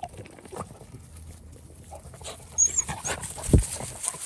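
Beagles close by, winded from a rabbit chase, panting and moving through grass, with a low thump about three and a half seconds in.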